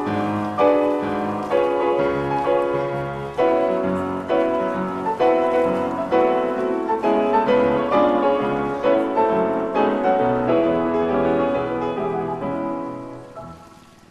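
Piano music, a steady run of struck notes that fades out near the end.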